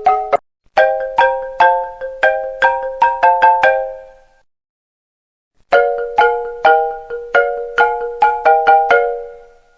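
iPhone ringtone in a marimba-like tone: a quick melodic run of struck, ringing chords, a pause of about a second and a half, then the run again.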